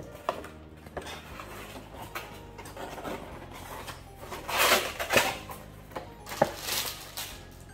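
A cardboard figure box and its plastic packaging being handled. There are a few light taps and clicks, then rustling, scraping noise a little past halfway as the plastic-wrapped contents slide out of the box.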